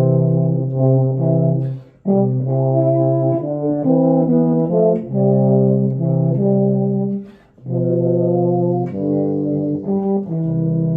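Euphoniums playing a slow hymn in two parts, soprano and bass, in sustained notes. The playing stops briefly between phrases about two seconds in and again about seven and a half seconds in, and a long held note begins near the end.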